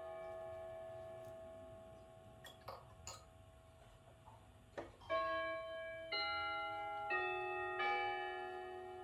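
Grandmother clock's Kienzle chime movement: a chime note rings on and fades. A few light clicks and a knock come as the hood door is shut. From about five seconds in, a chime sequence starts, one note struck about every second, each ringing on over the last.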